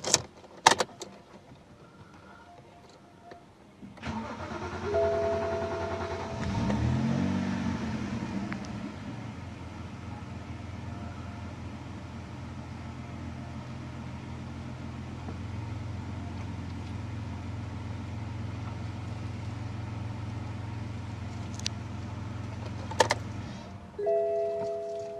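BMW N52 straight-six engine cranked and started about four seconds in. Its revs flare up and fall back, then it idles steadily until it is switched off near the end. A short chime sounds just after the start and again as it shuts off.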